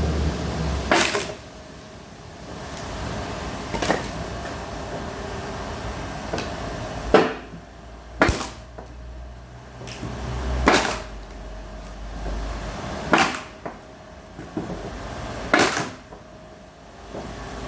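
Homemade axe splitter driven by a reduction-gear motor, striking and splitting firewood. There are seven sharp cracks about two to three seconds apart, with a low motor hum between some of the strikes.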